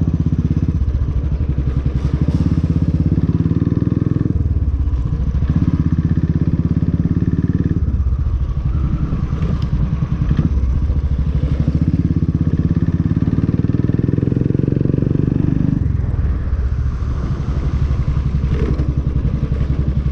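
Motorcycle engine running as it rides slowly over a bumpy road, the engine note swelling and easing every few seconds as the throttle opens and closes.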